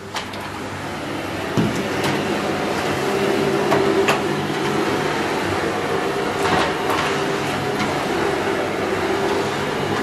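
Canister vacuum cleaner running steadily, its motor building up over the first couple of seconds, while the floor head is pushed across a hard floor with a few light knocks.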